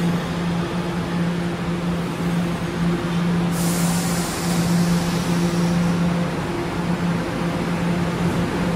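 Kawasaki R211A subway train creeping to a stop at the platform, with a steady low electric hum. A sudden hiss of air comes about three and a half seconds in and fades over a second or two.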